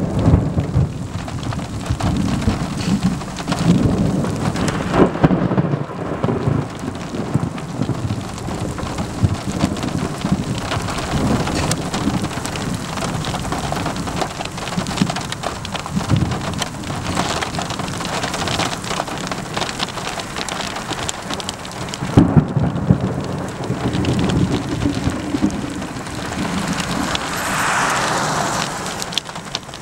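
Thunderstorm: steady rain hiss with low rolling thunder, and two sharper, louder thunder claps about five seconds in and again around twenty-two seconds in. Near the end a vehicle passes, its tyres hissing on the wet road.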